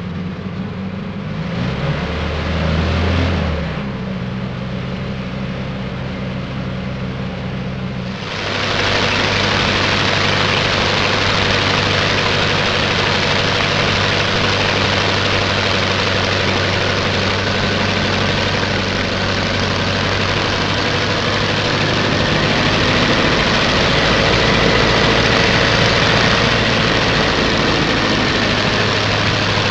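Propeller-plane piston engine running steadily at low power. About eight seconds in it jumps to a louder, rushing full-power drone that holds steady.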